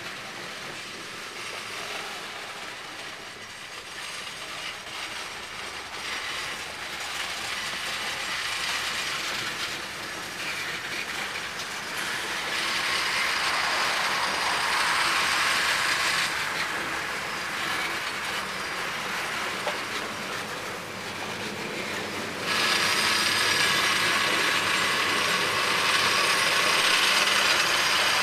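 A cut of railroad tank cars being shoved slowly past on steel rails: wheels and trucks rumbling and clicking over the track, growing louder. There are harsher, louder stretches of wheel noise about halfway through and again from about three-quarters through.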